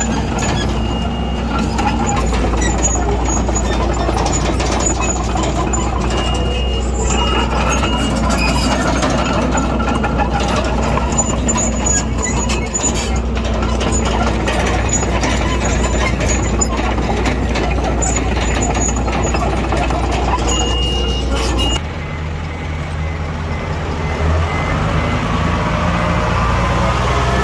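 Diesel engines of a Komatsu D21A bulldozer and dump trucks running under work, a dense steady engine noise, with short high beeps a few times. The sound changes abruptly about 22 seconds in to a quieter engine hum.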